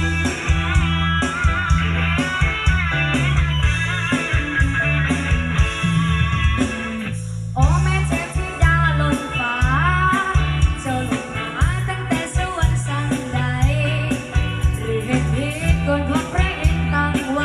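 A song with singing and a heavy, pulsing bass played through homemade outdoor loudspeakers, with a short break in the upper parts about seven seconds in.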